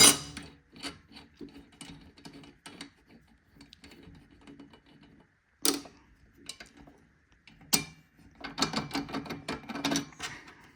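Scattered metal clicks and clinks of the table saw's arbor nut, flange and blade being handled as the stock flange is taken off, with a louder run of rattling clicks near the end.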